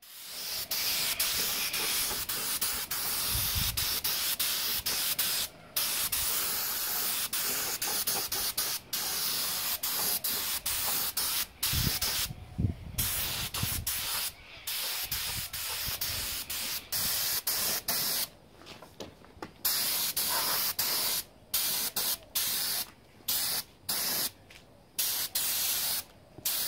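Compressed-air touch-up spray gun hissing as it sprays thin etch primer. The spraying runs in long passes broken by brief pauses, and in the last third it comes in quick short bursts as the trigger is pulled and released.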